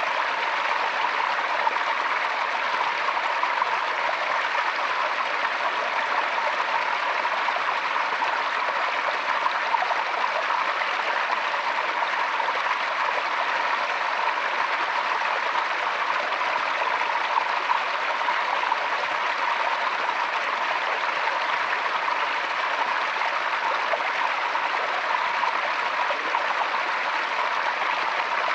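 Forest stream flowing, a steady rushing and burbling of water over stones.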